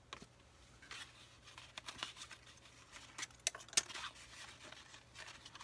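Faint handling of packaging: paper rustling from a folded quick start guide, with scattered light clicks and taps as a small lens case is picked up and turned over.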